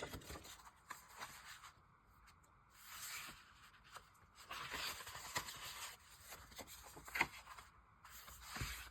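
Faint rustling and sliding of paper pieces being handled and shifted on a work surface, with a small sharp tap about two-thirds in and a soft thump near the end.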